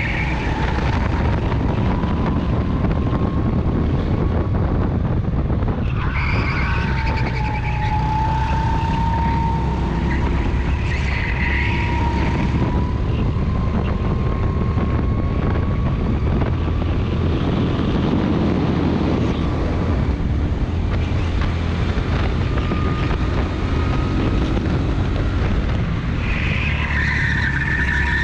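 Rental kart engine running under load, heard from the onboard camera with wind rumbling on the microphone; its pitch rises and falls with speed. Several short tyre squeals come in the corners, near the start, in the middle and again near the end.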